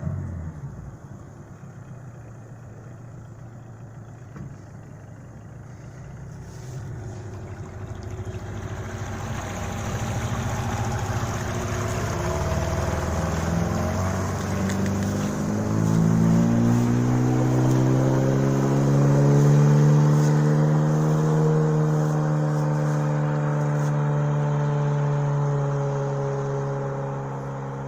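Sea Pro OTH 9.9 two-stroke outboard motor running at low revs, then throttled up from about eight seconds in, its pitch climbing steadily to high revs and holding there, easing slightly near the end.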